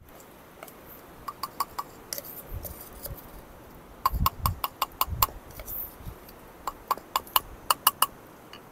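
Light clicks and taps of a wooden spoon against a plastic cup and a clay mortar as a chopped chilli-garlic mixture is scraped into the mortar. They come in three quick runs of several taps each.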